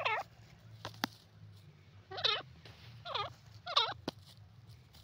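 Grey francolin giving short, quavering calls close by, four of them in about four seconds. Two sharp clicks fall between the calls.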